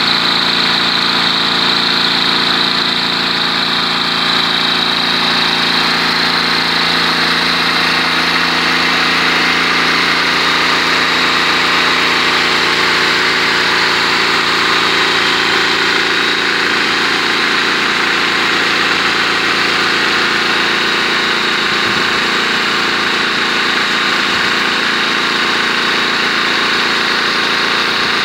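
Single-cylinder 163 cc four-stroke spark-ignition engine running steadily at constant speed, belt-driving a three-phase generator as a range extender, exhausting through a motorcycle muffler.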